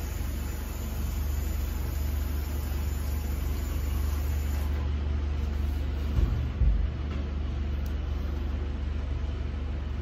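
Steady low rumble of an idling engine, with two brief low thumps about six seconds in.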